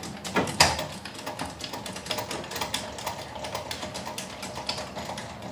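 Trailer tongue jack being cranked down, its gears giving a quick, irregular run of clicks and taps, with one louder knock about half a second in, as the trailer's weight is lowered onto the hitch ball.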